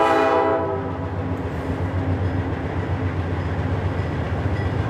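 Freight train's diesel locomotive sounding its horn, a stack of notes that ends about a second in, followed by a steady low rumble from the locomotive and train as it rolls onto the bridge.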